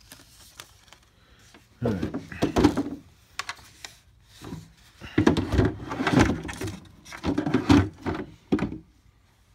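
Plastic-bodied Black Max gas chainsaw being handled and turned over: several bursts of knocks and rattles, with quiet gaps between.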